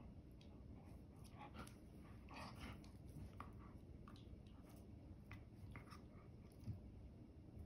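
Faint, irregular clicks of a dog chewing and mouthing a rubber ring toy, with one soft thump near the end.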